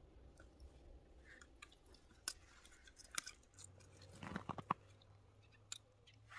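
Faint scattered clicks and crunches from a wooden stick cross and fishing line being handled on crushed lake ice, with a short run of crunching about four seconds in.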